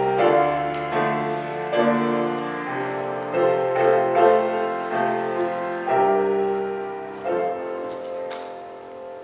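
Slow piano music, the chords changing about once a second. The final chord comes near the end and dies away gradually.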